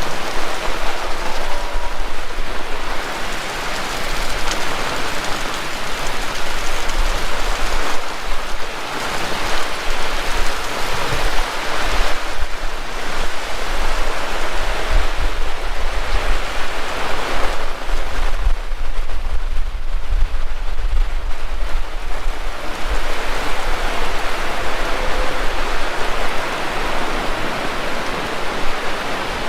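Heavy rain pouring down, a loud dense hiss that swells and eases every few seconds.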